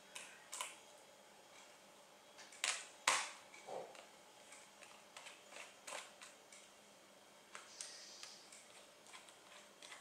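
Light, scattered clicks and ticks of a small precision screwdriver working the tiny screws inside an Asus UX32VD laptop's open chassis, with two sharper clicks close together about three seconds in.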